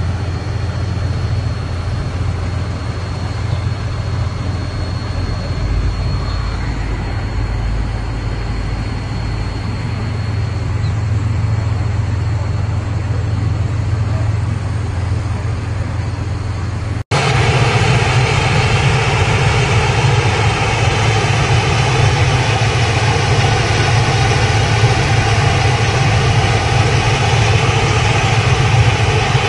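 Heavy military vehicle engines running at idle in a steady low drone. After a cut about seventeen seconds in, a louder steady engine drone with an even hum takes over.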